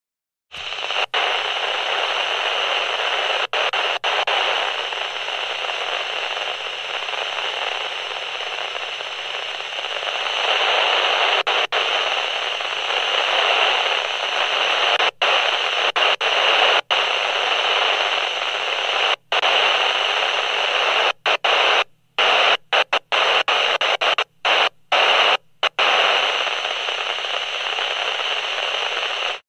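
Two-way radio static: a steady hiss with the thin, low-cut sound of a handheld radio, cutting out briefly several times, mostly in the second half.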